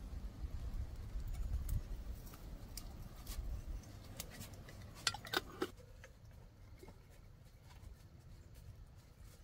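Small wood campfire crackling, with scattered sharp clicks throughout, under rustling and handling of a small jar during the first few seconds. Two louder sharp clicks come about five seconds in, after which it goes quieter.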